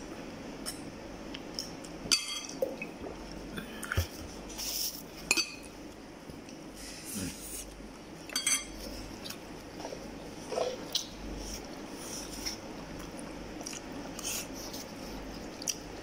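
Eating sounds: sips from a small plastic water bottle, then rice and meat eaten by hand from a plate. Scattered sharp clicks and small handling knocks come over a quiet background.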